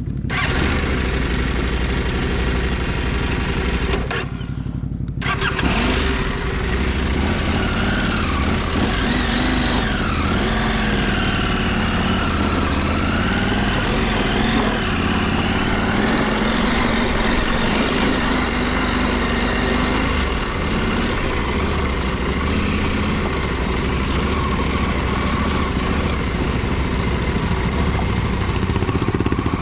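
Motorcycle engine running steadily, with a higher whine over it that wavers in pitch from about six seconds in until about twenty seconds in.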